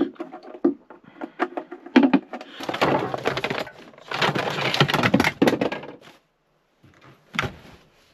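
Handling noises in a small cab: a run of light clicks and knocks as a plastic hot pot is set down. Then two stretches of rustling and scraping while food is pulled out of a small fridge drawer, and a single sharp knock near the end.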